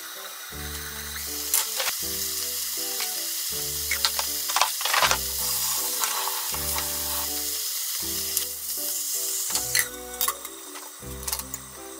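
Chicken breast sizzling as it fries in a nonstick frying pan, the sizzle rising about a second in and easing near the end, with a few sharp clinks as the pan lid is lifted and set back. Soft background music with a steady beat plays underneath.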